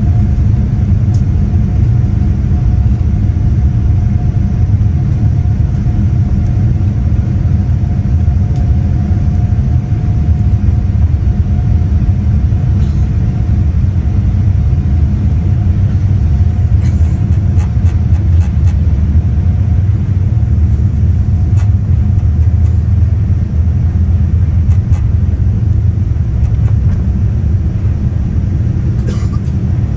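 Steady low rumble heard inside the cabin of a Boeing 787-10 airliner taxiing with its engines at low power, with a thin steady whine above it and a few faint clicks.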